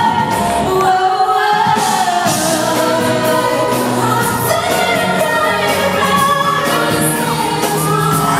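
A pop song performed live: singing over a band's backing, the melody running on without a break.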